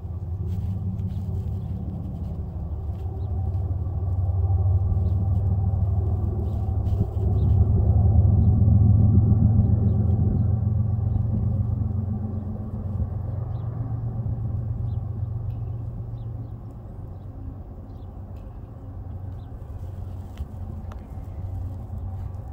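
Low engine rumble of a passing motor vehicle, swelling to its loudest about eight to ten seconds in and then fading away.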